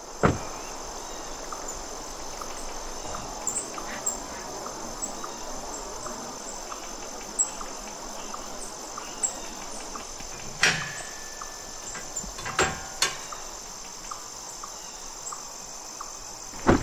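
Insects, crickets by the sound, keeping up a steady high-pitched chirring drone. A few sharp knocks and clicks cut through it, the loudest just after the start and near the end.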